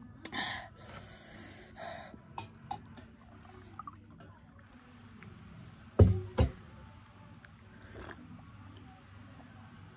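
Slurping sips from a mug and sharp hissing breaths, the kind drawn in when the mouth is burning from spicy chutney, with a faint trickle of water poured from a stainless-steel kettle. Two loud knocks on the table about six seconds in, the loudest sounds, then another sip.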